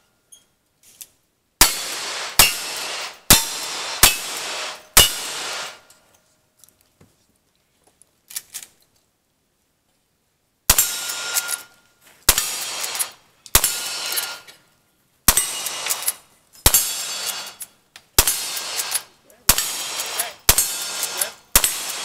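Cowboy action shooting string: five revolver shots in about three and a half seconds, then, after a pause of several seconds with faint clicks, a lever-action rifle fired about ten times at roughly one shot a second. Each shot is followed by the short clang of a struck steel target.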